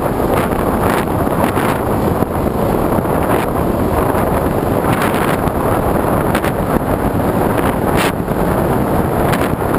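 Steady loud rush of airflow buffeting the microphone of a camera carried on a model aircraft in flight, with a few brief gusty swells.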